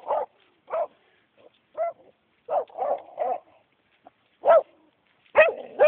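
A dog barking at a squirrel it has cornered in a hole: about ten short, sharp barks at an uneven pace, some coming in quick pairs.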